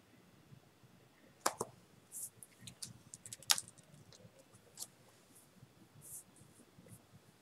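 Scattered sharp clicks, the loudest about a second and a half and three and a half seconds in, with a few short, soft, hissy rustles between them, as of small things handled at a desk.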